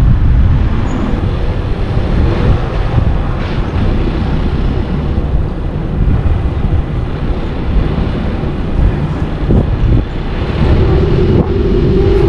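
A car driving at low speed, its road and engine noise heard as a steady low rumble with wind buffeting the microphone. A steady hum comes in near the end.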